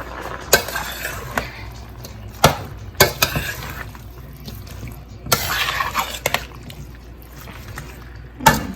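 Cooking utensil knocking and scraping against a pot of chicken while the soy sauce is mixed in: several sharp clinks spread through, with a longer scraping stretch a little past the middle.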